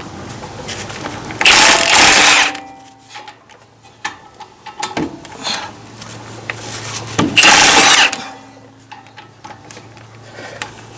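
Impact wrench hammering in two bursts of about a second each, loosening the 17 mm caliper bracket bolts, with small tool clicks in between.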